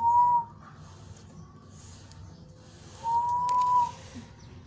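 Two short whistle-like tones, each a single clear note held steady, about three seconds apart; the second is longer.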